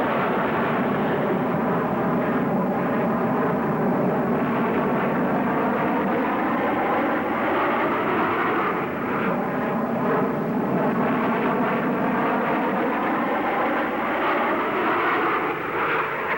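Jet aircraft flying past at an air display: a loud, continuous jet roar whose tone slowly sweeps up and down as it passes.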